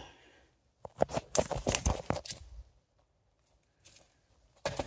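Comic books being handled: a run of rustles and light knocks lasting about two seconds, then one short rustle near the end.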